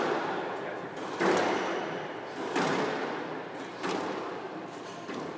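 Squash rally: the ball struck by rackets and smacking off the court walls, sharp echoing thwacks about every second and a half.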